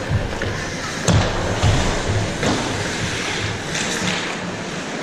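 Ice hockey play: skate blades scraping and carving on the ice, with several sharp clacks of sticks and puck, the loudest about a second in and again near two and a half seconds and four seconds.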